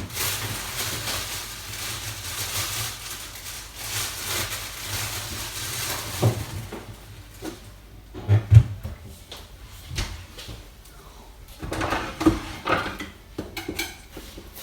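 Kitchen handling sounds: several seconds of rustling, then scattered knocks and bumps like cupboard doors, drawers and items being set down.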